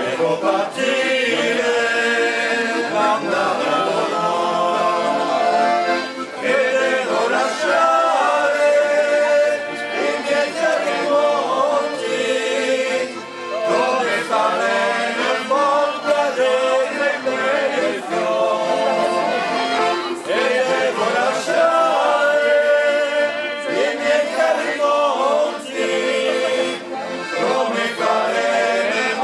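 Several men singing a traditional folk song together in phrases, accompanied by accordion and fiddle.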